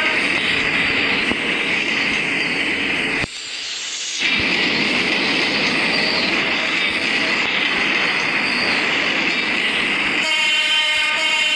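PNR train running past with a steady rushing wheel-and-rail noise, which drops away briefly about three seconds in. Near the end the train's horn starts to sound, a steady multi-note blast.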